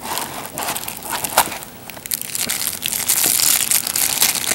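Clear plastic packaging bag crinkling and rustling as it is pulled out and handled, with a few sharp clicks; the crackling grows louder and denser in the second half.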